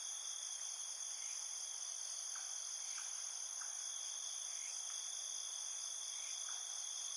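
Steady chorus of insects, continuous high-pitched trilling like crickets, with faint short chirps every half second or so.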